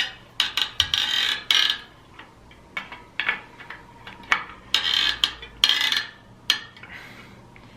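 Irregular metallic clicks and short ratcheting rattles from a bicycle wheel being turned and its spokes tightened while it is trued.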